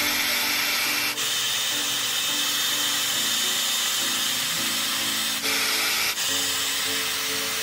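Remington Hydraluxe blow dry brush running, its fan blowing hot air in a steady hiss as it is drawn through wet hair, with faint background music.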